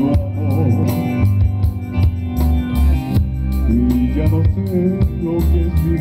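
Live band playing an instrumental passage: drums keeping a steady beat under electric guitar, bass and electronic keyboard.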